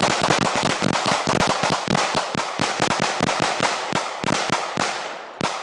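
A long, rapid, irregular crackle of sharp bangs, many a second, thinning out near the end.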